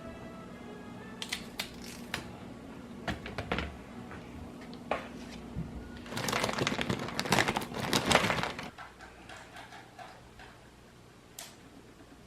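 Scattered clicks and taps of objects being handled, building about six seconds in to a couple of seconds of dense rattling clatter, over a steady low hum that stops suddenly near the end of the clatter.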